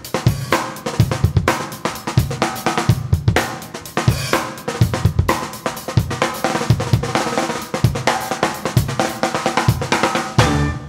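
Drum-heavy theme music for the opening titles, with snare, bass drum, hi-hat and cymbals keeping a steady, busy beat under pitched instruments; it drops away at the very end.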